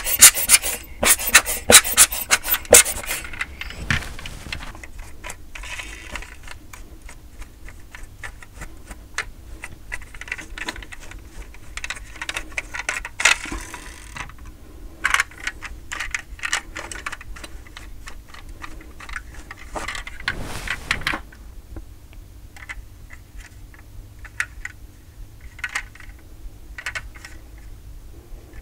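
Small dusting brush scrubbing quickly over a die-cast metal model car's body for the first three seconds or so, then scattered clicks, light scrapes and knocks as the die-cast cars are handled and set down on a tabletop, with a short rustle about twenty seconds in.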